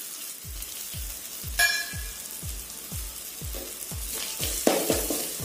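Onion-tomato masala frying in an aluminium kadai, sizzling as a steel ladle stirs in coriander powder. The ladle clinks against the pan once, about one and a half seconds in. Background music with a steady beat of about two beats a second runs underneath.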